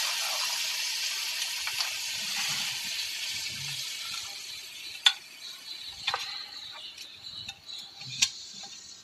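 Cooked beef and its cooking water sizzling in a pan of hot fried onion and spice masala, the sizzle slowly dying down. A few sharp clicks come from about five seconds in.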